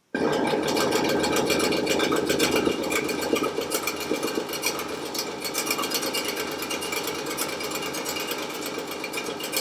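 Makita SJ401 variable-speed scroll saw switched on and running with no cut, its blade reciprocating in a fast, dense chatter that starts abruptly and is a little quieter in the second half. The machine is vibrating a lot because it is resting on a table saw top rather than fixed to a countertop or workbench.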